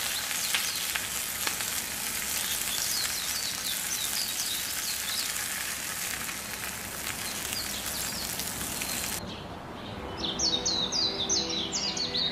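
Broad beans and dried fish sizzling in a clay pot as a wooden spatula stirs them, with light scraping clicks and birds chirping in the background. About nine seconds in the sizzle cuts off suddenly and music with bird calls begins.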